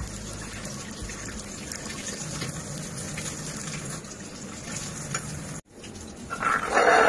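Thick custard being poured and scraped with a spatula from a steel pot into a bowl, over a steady hiss. The sound cuts off suddenly about five and a half seconds in, and a brief louder sound follows near the end.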